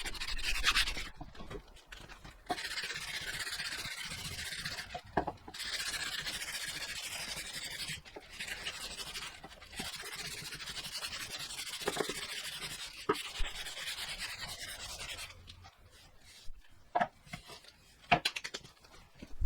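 Sandpaper rubbing on a wooden axe handle, sanded by hand in stretches of a few seconds with short pauses between them. A few light knocks come near the end.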